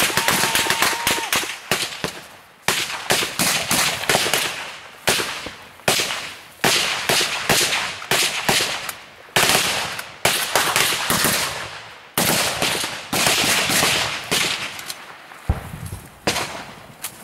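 Bursts of automatic small-arms gunfire: rapid strings of shots separated by short pauses, each burst echoing away.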